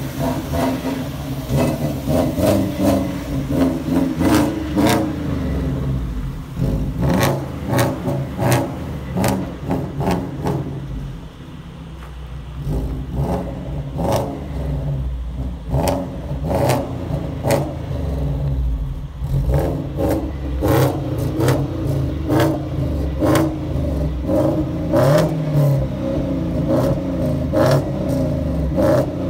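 Lada Priora with a loud aftermarket exhaust revving hard and repeatedly, with many sharp exhaust pops and bangs. It eases off briefly about halfway through, then revs hard again.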